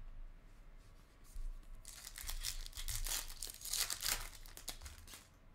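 A trading-card pack wrapper being torn open and crinkled, a dense run of crackling from about two seconds in that dies away about four and a half seconds in.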